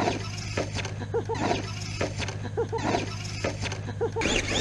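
RC monster truck driving in loose sand, its tyres spinning and throwing sand in gritty bursts about every second and a half, over a steady low hum.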